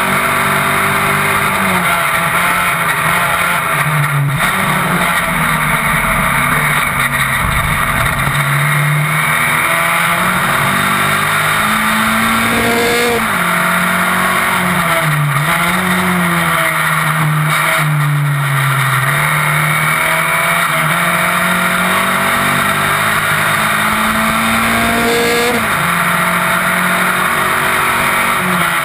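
Single-seater race car's engine at racing speed, heard on board, its pitch climbing through the revs with sharp drops at gear upshifts, once about halfway and once near the end. The pitch sits lower and unsteady about four to eight seconds in, with a rush of wind noise over it.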